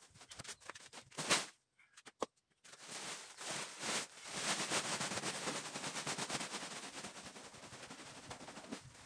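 Sawdust pouring out of a woven plastic sack onto dirt ground, with the sack rustling: a few rustles and a knock at first, then a dense crackling hiss that starts about three seconds in, swells, and slowly tapers off.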